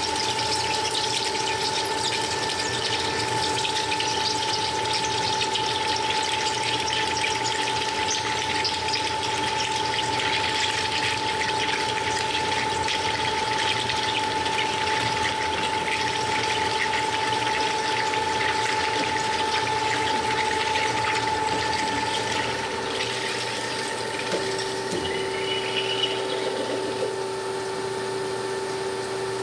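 CNC cutting machine running: a steady, loud hiss over a steady hum with two held tones. About three quarters of the way in, the hiss thins and gets a little quieter while the lower tone carries on.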